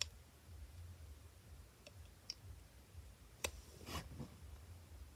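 Quiet room tone with a low steady hum and a handful of faint, scattered clicks, the clearest about three and a half seconds in.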